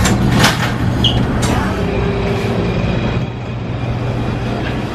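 Steady low hum of a busy market hall, with a few sharp knocks near the start and one short high beep about a second in.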